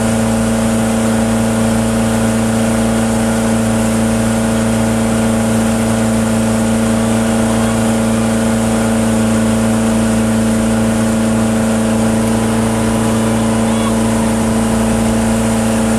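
Towing motorboat's engine running at a steady speed, an even drone that holds one pitch throughout, over the rush of water in the boat's wake.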